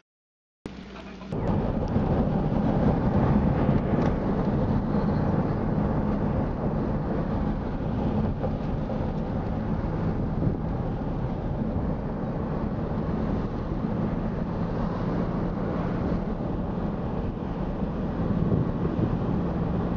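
A car driving on a paved road: a steady low rumble of road and engine noise heard from inside the cabin, starting about a second in.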